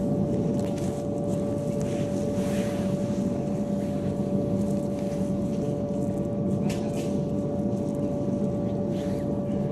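Steady mechanical hum holding one constant tone, with no change in level.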